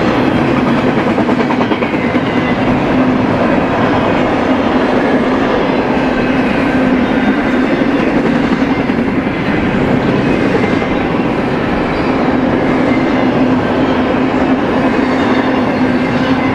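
BNSF freight train rolling past, a loud, steady rumble of wheels on rail with a steady hum under it.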